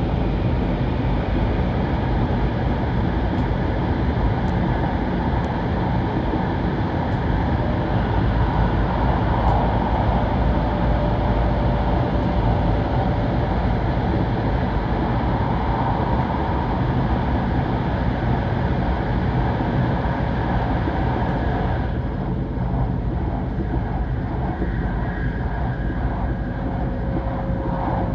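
Cabin noise inside a Kyushu Shinkansen 800 series train running at speed through a tunnel: a steady, dense rush and rumble. About 22 seconds in the noise eases and changes character as the train comes out of the tunnel.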